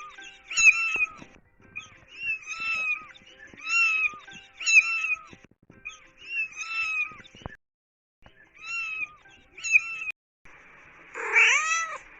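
Kittens meowing: a run of short, high-pitched mews, often two or three close together, with a brief silence about two-thirds of the way through. Near the end comes a lower, drawn-out meow over a faint hiss.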